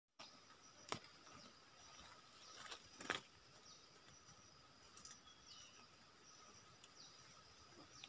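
Faint outdoor ambience of insects making a steady high drone, with a few short falling bird chirps and two sharp knocks about one and three seconds in.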